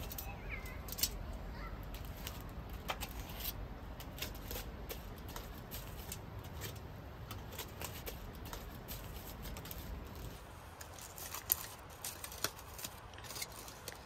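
Metal tongs clicking and scraping against foil-wrapped corn cobs on the grate of a Weber portable gas grill, over a low steady rumble. After about ten seconds the rumble drops away, and aluminium foil crinkles as a cooked cob is unwrapped by hand.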